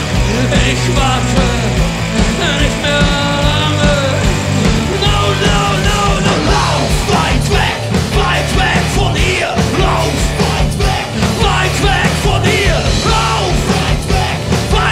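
Rock band playing live, with electric guitar and bass under a male lead singer singing into the microphone.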